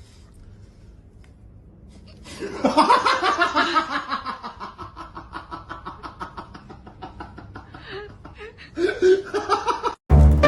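A person laughing hard: a sudden burst about two seconds in of rapid pulsing laughs that gradually trails off, then a second burst of laughter near the end.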